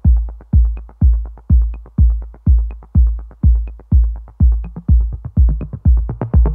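Background electronic dance music: a steady drum-machine kick beating about twice a second, with a light high tick about once a second.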